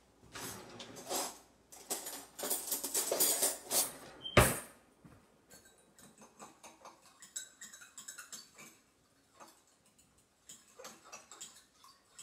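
Kitchen things being handled at the counter: rustling and scraping for the first few seconds, one sharp knock about four seconds in, then scattered light clinks and taps.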